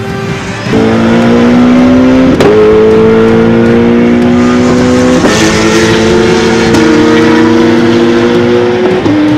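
Porsche 911 GT3 Cup race car's flat-six engine accelerating hard on track. The engine note climbs steadily, broken by sharp gear changes about two and a half and five seconds in, and falls away just before the end.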